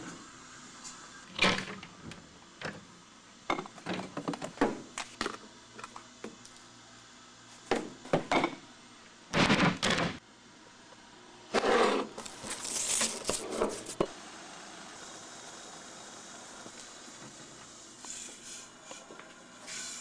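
A stainless stovetop kettle and glass mugs being handled: a string of irregular knocks and clatters, with a longer noisy stretch about twelve seconds in.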